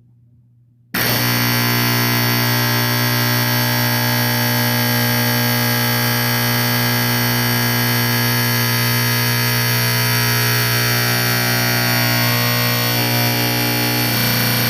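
Simplex 4050 120-volt AC electromechanical fire alarm horn sounding continuously: a loud, harsh buzz that starts suddenly about a second in and holds steady without pulsing.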